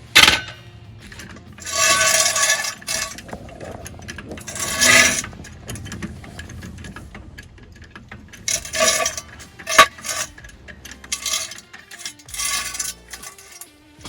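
Intermittent metallic clinks and scrapes from hand tools working on a riding mower's front wheel: a sharp click at the start, then half a dozen short ringing bursts.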